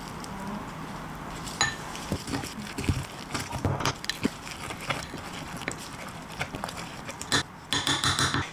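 A spoon stirring a thick batter in a ceramic ramekin: wet scraping with scattered clicks of the spoon against the dish, starting about a second and a half in, getting busier, and ending in a longer run of scraping.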